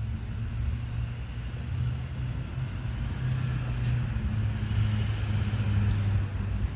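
Pickup truck driving past on a street, a low engine hum with tyre noise that swells and peaks about five seconds in.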